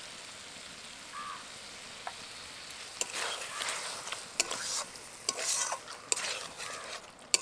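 Steady low sizzle of a curry frying in a metal kadai. From about three seconds in, a steel spatula scrapes and clicks against the pan while stirring chicken pieces through the tomato purée.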